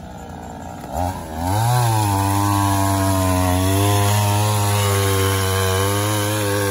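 Two-stroke chainsaw running low, then revved up about a second and a half in and held at a steady high pitch as it cuts into a fallen tree trunk.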